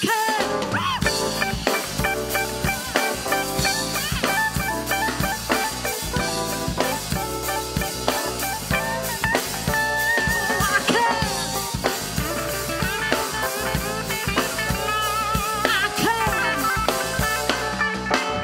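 Live band playing an instrumental passage: a drum kit keeps a steady beat with snare and rimshot strokes under an electric guitar playing lead lines.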